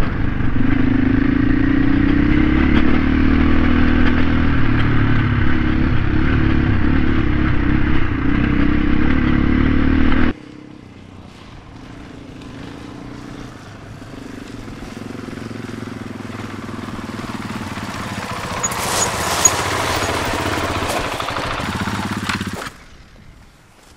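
Enduro dirt bike engine running steadily while riding a dirt track, heard up close from the bike itself. About ten seconds in it cuts to two dirt bikes heard from a distance, their engines growing louder as they approach, until the sound drops away shortly before the end.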